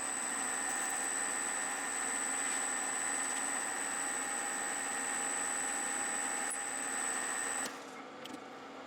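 Small metal lathe running with a steady high-pitched whine, switched off about three-quarters of the way through and cutting off abruptly, followed by a few light clicks.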